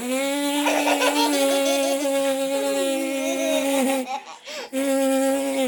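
A toddler laughing and giggling over a long, steady held note that breaks off about four seconds in and comes back about a second later.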